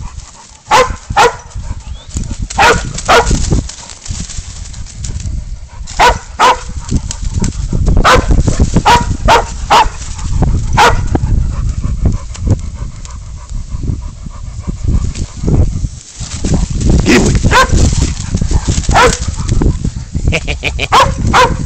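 Pig dog barking while baying up a feral goat: short barks in clusters of two to four with pauses between them, over a low rumble.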